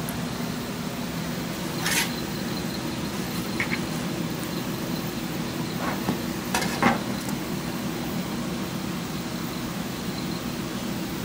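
Steady kitchen hum and hiss, with a few sharp clicks and knocks as toasts are handled and a knife cuts through one onto a plastic cutting board; the loudest knock comes about seven seconds in.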